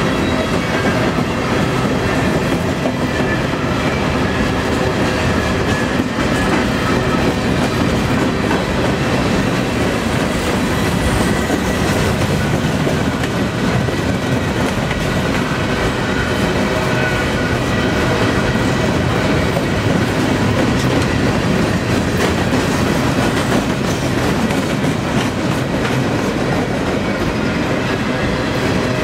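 Boxcars of a long freight train rolling past at about 18 mph, their steel wheels clicking over the rail joints in a steady, even noise.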